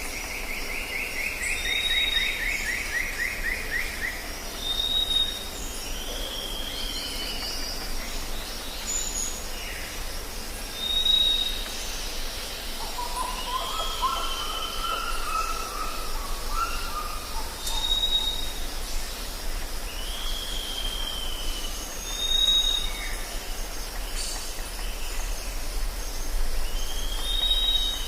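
Tropical forest ambience: several birds calling, with short high whistles repeated every few seconds, downward-slurred calls, a fast trill near the start and a lower warbling phrase around the middle, over a steady high drone of insects.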